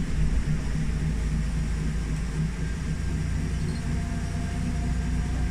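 Safari tram running, heard from on board: a steady low rumble of its drive and wheels.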